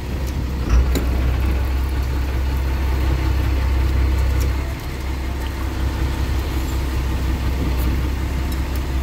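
Boat engine running steadily with a low hum; a single knock a little under a second in.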